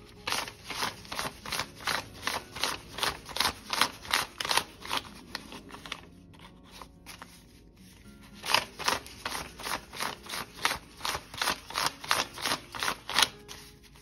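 US dollar bills being counted by hand, each note flicked off the stack with a crisp paper snap, about three a second. The flicking comes in two runs with a pause of a few seconds in the middle.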